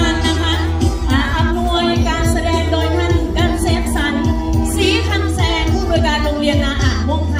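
Loud music with a singer's voice wavering over a heavy, steady bass.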